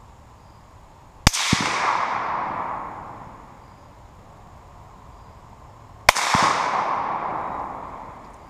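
.308 Remington 700 SPS bolt-action rifle fired twice, about five seconds apart, heard from downrange near the target. Each shot is a sharp crack with a dull thud just after, then the report rolls across the field and fades over about two seconds.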